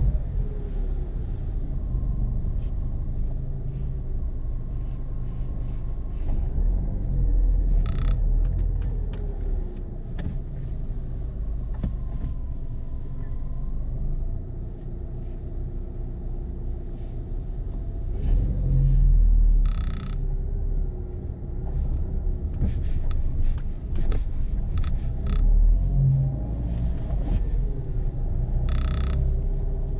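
A car driving slowly through an underground parking garage, heard from inside the car: a steady low engine and tyre rumble, the engine note rising and falling gently. Three brief, sharper high sounds cut in over it during the drive.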